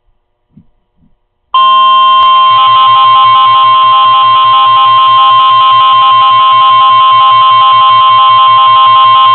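Emergency alert attention tone: a loud, steady electronic tone, strongest around 1 kHz, starting about a second and a half in, with a faint rapid pulsing underneath. It signals that a weather warning broadcast is about to follow.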